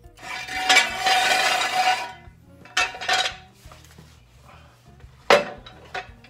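Metal scraping and clattering, loudest for nearly two seconds at the start, then a shorter clatter about three seconds in and a single sharp metal clank a little past five seconds.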